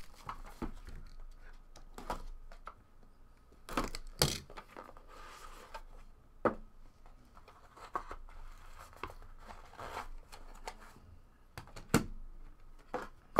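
A cardboard trading-card box being opened and handled: cardboard rubbing and sliding, with scattered sharp clicks and taps as hard plastic graded-card slabs are taken out and stacked, the loudest tap near the end.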